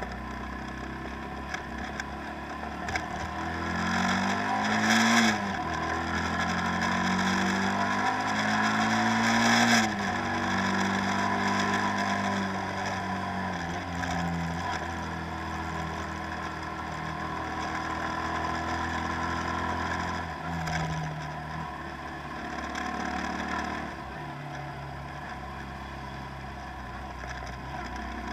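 An engine revving up twice, its pitch climbing and then dropping suddenly each time, before settling to a steadier run with smaller rises and falls.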